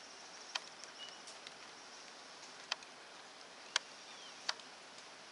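Outdoor ambience with a steady high hiss and a few faint short bird calls, one a falling whistle, broken by four sharp ticks at irregular intervals, the loudest a little past the middle.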